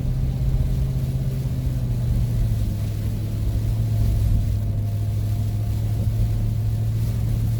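Ford van's engine and road noise heard from inside the cabin while driving: a steady low drone that drops slightly in pitch about two and a half seconds in.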